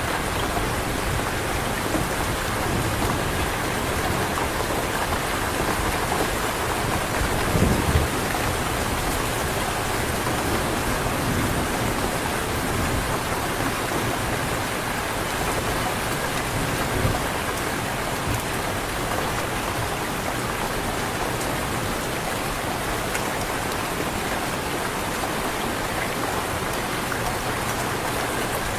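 Heavy rain falling steadily, with a low rumble of thunder about eight seconds in and a fainter one around the middle.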